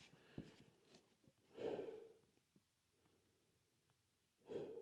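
Near silence with a faint click and two soft breaths, about a second and a half apart and then three seconds apart, as the shooter settles between shots.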